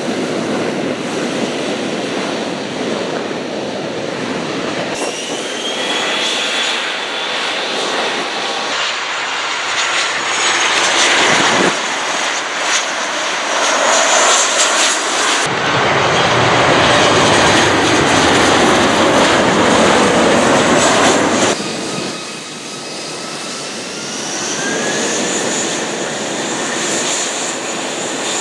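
Aircraft engines running loud at an airfield, with high whines that rise in pitch several times. The sound changes abruptly a few times, loudest in the middle stretch.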